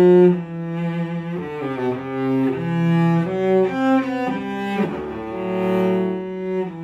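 Bieg cello, made on a Guarneri pattern, bowed solo in a melodic passage of held notes that change about every half second to a second, with two notes sounding together at times.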